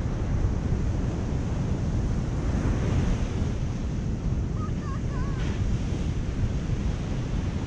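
Surf breaking and washing up a sand beach, a steady rushing with wind buffeting the microphone. A short wavering call cuts in briefly about five seconds in.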